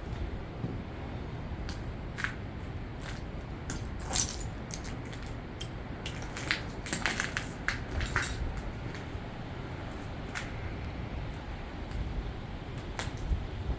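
Footsteps with scattered knocks and clinks as someone climbs a staircase that shifts underfoot, busiest about four seconds in and again a few seconds later, over the steady rush of a river.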